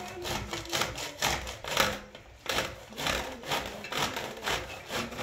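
An ear of fresh corn grated on a stainless steel box grater, rasping strokes about three a second, with a short pause about two seconds in.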